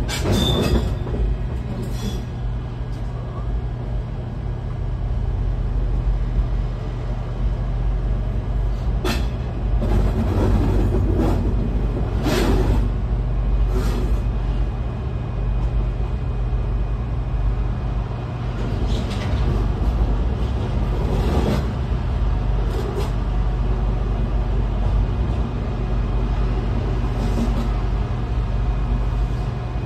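Cab of a moving electric train: a steady low rumble and hum, broken by a scattering of short knocks and clunks as the wheels run over points and rail joints.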